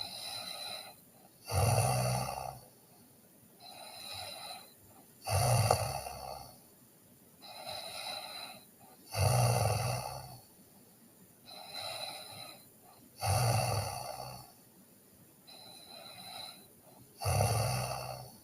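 A sleeping person snoring in a steady rhythm. There are five loud, low snores about every four seconds, with a softer breath between each.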